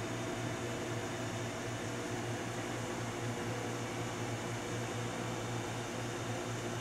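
Steady mechanical hum of a longitudinal seam welder as its TIG torch carriage travels along the seam, with a low pulsing buzz over an even hiss.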